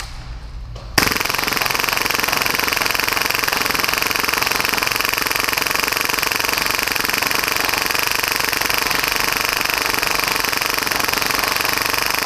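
Full-auto, HPA-powered Tokyo Marui Hi-Capa airsoft pistol firing one unbroken burst at about 30 rounds per second from a 300-round hi-cap magazine. The fire starts abruptly about a second in.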